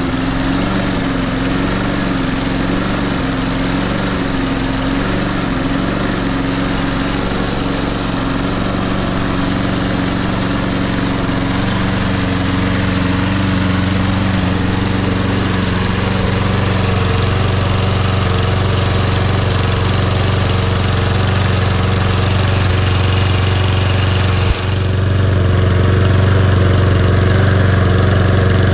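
Toro Super Recycler SR4 lawn mower's Briggs & Stratton 190cc single-cylinder engine running just after a cold start. Its speed wavers for the first few seconds while still cold, then settles into a steady run, with a short break near the end.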